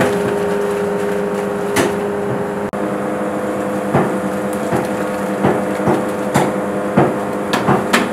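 Steel vessel knocking and clinking against a large cooking pot several times as parboiled rice is tipped in, over a steady mechanical hum.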